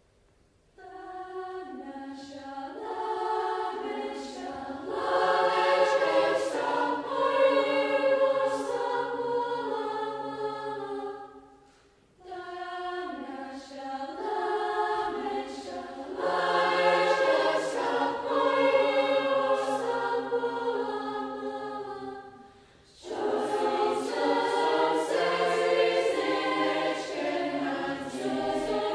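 School choir of mostly girls' voices singing in sustained chords, in three phrases with short breaks about twelve and twenty-three seconds in.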